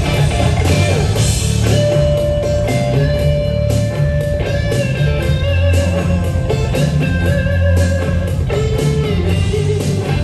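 Guitar-led instrumental break of a Mandarin pop ballad, with a lead guitar line held over a steady bass and drum beat between sung verses.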